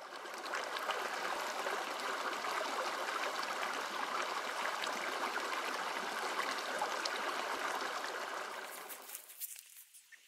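Stream water flowing in a steady rush and trickle, fading in at the start and fading out near the end.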